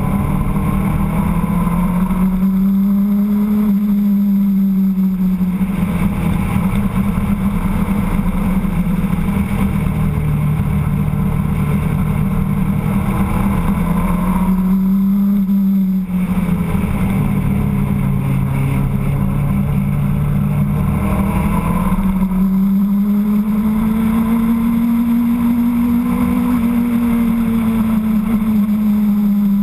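Motorcycle engine heard from on board while riding, its note rising and falling with the throttle and dropping back sharply a few times as the throttle closes or the gear changes.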